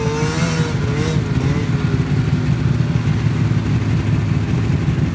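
Ski-Doo snowmobile engine running steadily, with a wavering whine that slowly falls away over the first two seconds.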